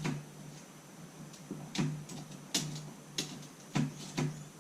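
Sharp mechanical clicks and knocks from an antique Corona typewriter being worked by hand, about five of them spaced half a second to a second apart after a quiet first couple of seconds.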